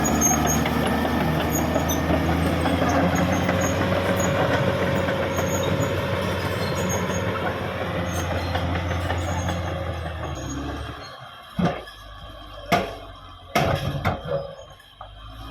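Caterpillar D6R XL bulldozer's diesel engine running steadily. About ten and a half seconds in, the engine sound drops away and a few sharp knocks follow.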